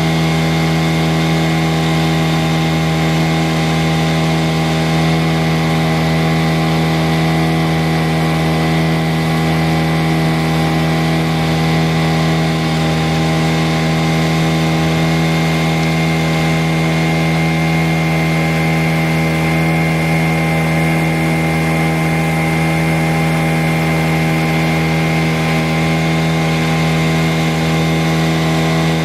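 Honda four-stroke outboard motor running steadily at cruising speed, pushing a small boat along. A constant hum at one even pitch, with no change in speed.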